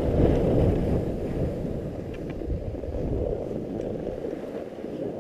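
Wind rushing over an action camera's microphone with the scraping hiss of sliding down a groomed ski run on packed snow; the low rushing noise grows quieter in the second half.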